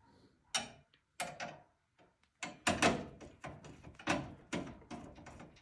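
Hands and a screwdriver working on a Cougar Conquer 2 PC case while its panel screws are taken out: a few separate light clicks, then from about two and a half seconds in a quick run of small metal knocks and clicks.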